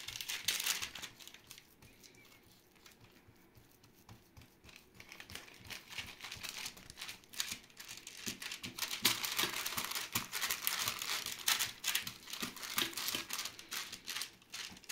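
Hands pressing and stretching a soft, buttery, oiled dough out across a baking tray, making many small sticky crackles. A busy first second is followed by a few quieter seconds, and the sound picks up again about halfway through.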